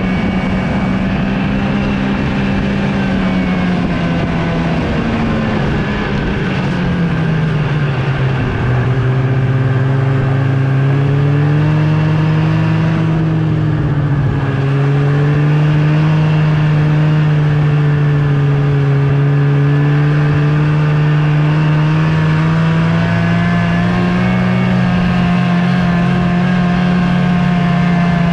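Snowmobile engine running steadily under way. Its pitch drops about six to eight seconds in, then holds with small rises and falls.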